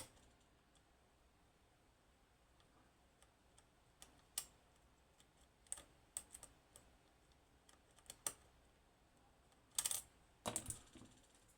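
Faint, scattered clicks of a lockpick and tension wrench working the pins of a Goal P pin tumbler lock, with a few louder clicks close together near the end. The picker takes them for a pin dropping or an overset pin.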